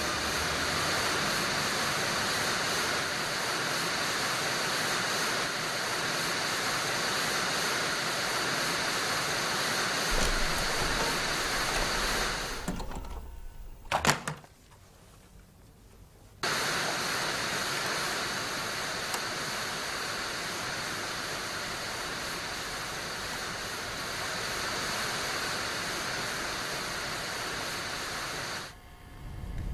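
Steady static hiss from a television playing a videotape. It cuts out for a few seconds about 13 seconds in, with a sharp click, then comes back.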